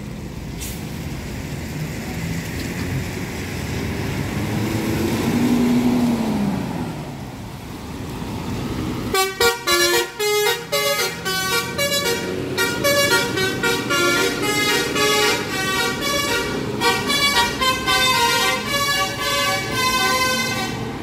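A coach's engine runs as it pulls past and away. From about nine seconds in, a multi-tone 'telolet' bus air horn plays a rapid, stepping tune of short blasts.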